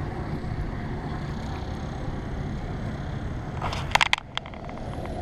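Steady low rumble of wind on the microphone. About four seconds in comes a short burst of sharp clicks and rattles as the hooked fish and the rod are handled.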